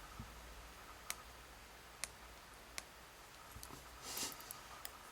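Small sharp metal clicks of tools working in a padlock body as the pins are taken out: three single clicks about a second apart, then a quick run of small ticks and a short scratchy rattle.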